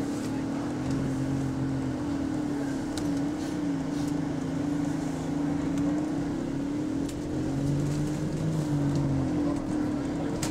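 A London double-decker bus's engine and air compressor running, heard from inside the bus: a steady drone with a wavering tone, and a lower hum that comes and goes.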